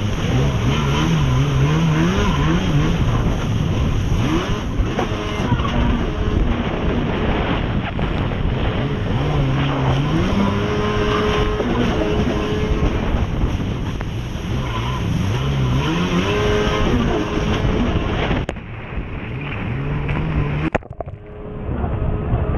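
Yamaha SuperJet stand-up jet ski's two-stroke engine running hard, its pitch rising and falling several times as the throttle works through the race course, over a steady rush of water spray and wind. Near the end the sound turns muffled and briefly drops away.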